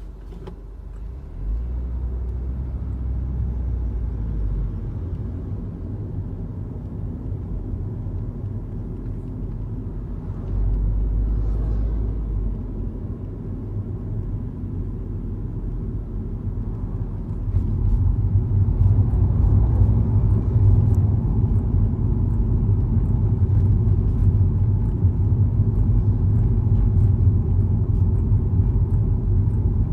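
Low droning hum from a vehicle's hydro link unit, which the owner suspects is making an abnormal noise. It gets louder in steps: once about a second and a half in, during a brief louder stretch around the middle, and again about two-thirds of the way through, staying louder after that.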